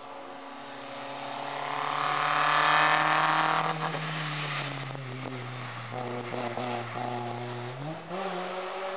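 Hill-slalom race car's engine drawing near and passing close through a hairpin, loudest about three seconds in. Its pitch then drops a little and holds low, and it climbs again near the end as the car accelerates away.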